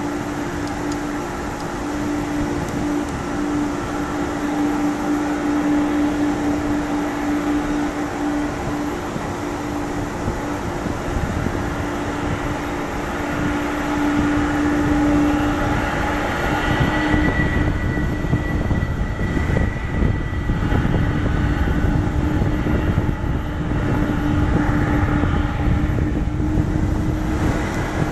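A McDonnell Douglas MD-11F trijet's engines at taxi power as it turns onto the runway: a steady jet whine over a low rumble. The rumble grows louder from about halfway through, and a higher whistle comes in briefly near two-thirds of the way.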